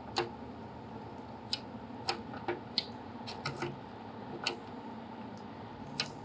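About a dozen sharp, irregular metal clicks as snap ring pliers and a screwdriver work a spring-steel headlight retainer clip loose from its adjuster stud. The clicks come at uneven intervals; the loudest are near the start and near the end.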